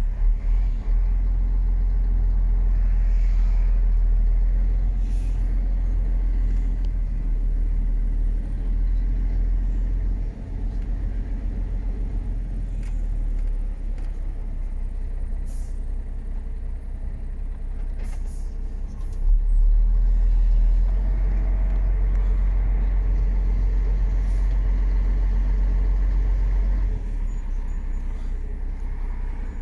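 MAN F90 26.422 truck's stock straight-six diesel engine running under way, a steady low drone. The drone steps down about a third of the way in and comes back louder for a long stretch about two-thirds through, with a few short clicks along the way.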